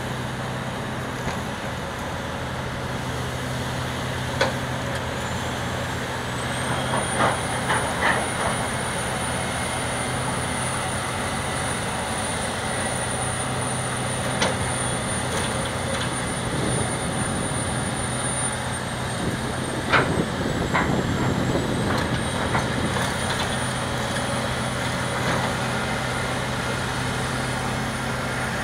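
Hitachi Zaxis 470 excavator's diesel engine running steadily under load while its ripper tooth tears through layered rock, with sharp knocks and scraping of steel on stone several times, loudest about seven to eight seconds in and around twenty seconds in. A thin high whine comes in about six seconds in and holds.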